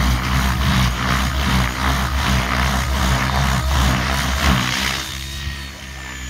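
Radio-controlled 3D aerobatic helicopter flying hard maneuvers, its main rotor giving a pulsing whoosh about twice a second over a steady low hum as the blades flip pitch back and forth. About five seconds in the whooshing stops and the sound drops to a quieter, slightly falling rotor tone as the helicopter levels out.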